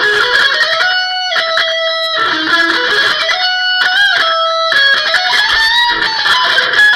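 Electric guitar playing a single-note lead line through an effects unit: long held notes with string bends.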